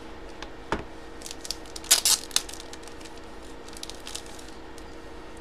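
Hands handling hard plastic coin holders and packaging on a tabletop: scattered clicks and taps, with a short crinkle about two seconds in.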